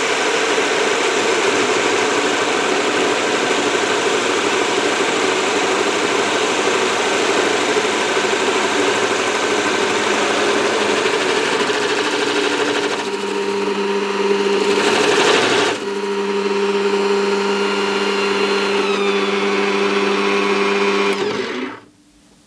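Bosch PBD 40 bench drill press running with an adjustable circle cutter cutting a round hole through a board: a steady motor hum with the cutter scraping through the wood, louder for a few seconds past the middle. About 21 seconds in the drill is switched off and the sound dies away.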